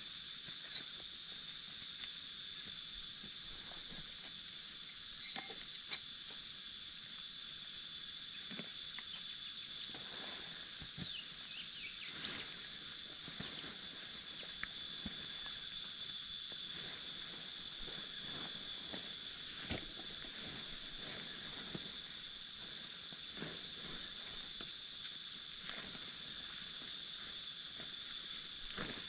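Steady, high-pitched insect chorus droning without a break, with scattered faint knocks and rustles.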